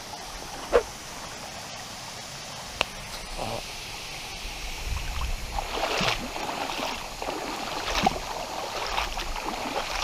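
Small stream running steadily, with a few sharp knocks and, from about five seconds in, louder rustling with a low rumble.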